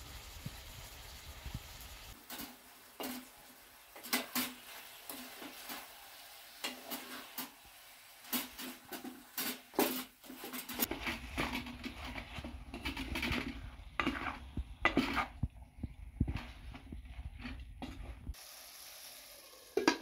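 A wooden spatula stirring and scraping chicken pieces around a metal pot, giving a run of short scrapes and knocks, with a light sizzle underneath. A metal lid is set on the pot with one sharp clank at the end.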